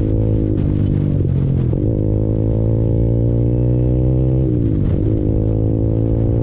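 Honda CBR150R's single-cylinder engine heard from the rider's seat under way, its note climbing steadily and dropping sharply twice at gear changes, about a second in and again near five seconds.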